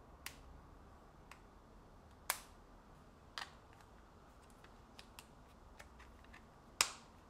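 Sharp plastic clicks and snaps of a hard phone case being pressed and clipped onto an Honor Magic V3 folding phone, several scattered clicks with the loudest about two seconds in and near the end.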